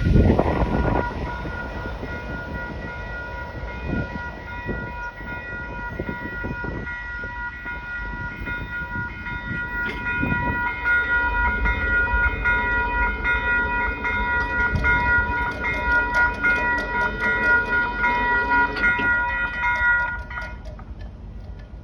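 Freight train rolling past, its cars rumbling over the rails with a steady high-pitched whine held above the rumble. The whine and the rumble fall away about twenty seconds in.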